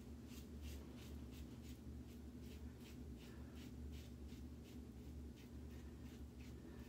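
Double-edge safety razor, a 1964 Gillette Slim adjustable on setting three, scraping lathered stubble off the neck in quick short strokes, about three a second with brief pauses. A faint steady low hum runs underneath.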